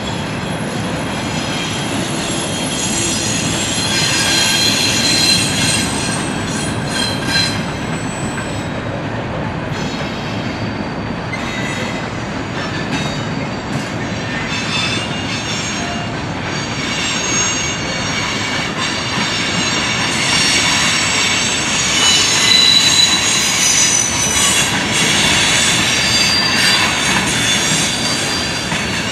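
Freight train cars rolling past, mostly double-stack container cars with covered hoppers near the end: a steady rumble and clatter of steel wheels on rail, with high thin wheel squeals that come and go.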